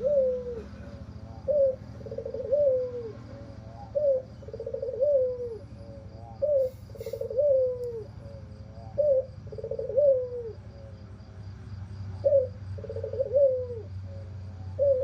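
White albino Barbary dove (puter) cooing: about six two-part coos, each a short rising note followed by a longer, hoarse, grating note that falls away, repeated every two to three seconds.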